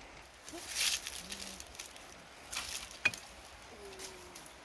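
Leaves and twigs rustling as leafy shoots are pulled down from a tree by hand, in two bursts, then a single sharp snap of a twig breaking about three seconds in.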